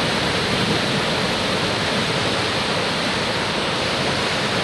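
Steady, loud rush of fast-flowing river water, even and unbroken.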